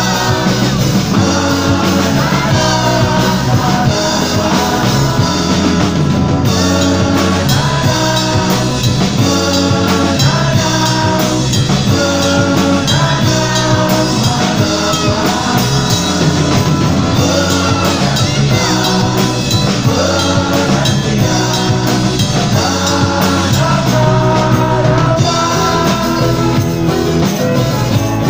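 Live rock band playing through the stage sound system: a singer's voice over acoustic and electric guitars.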